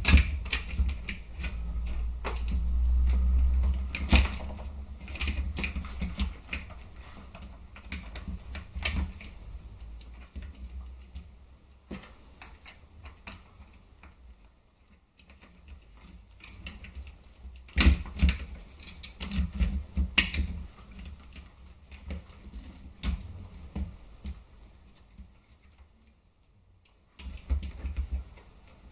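Irregular clicks, taps and knocks of plastic and metal airsoft rifle parts being handled and fitted together during reassembly, with a few louder knocks and some low handling rumble.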